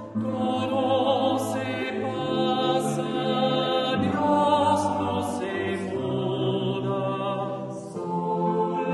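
Choral music: voices singing slow, held notes in a chant-like style over a low sustained bass tone, the harmony moving to a new chord every second or two.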